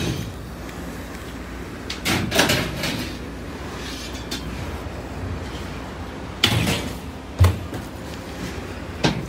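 Steel bed frame rails clanking and scraping against the floor of a box truck's cargo area as they are dragged and set down: a couple of knocks about two seconds in, two more in the second half, and one near the end.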